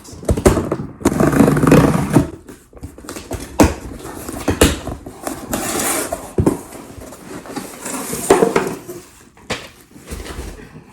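A shipping package being opened by hand: the packaging tears, rustles and crinkles in several spells, with scattered knocks as it is handled.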